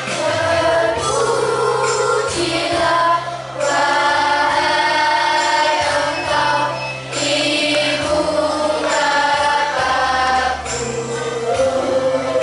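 Children's choir of boys and girls singing together into a microphone, over an instrumental accompaniment holding steady low notes. The singing runs in phrases with short breaks for breath about three and seven seconds in.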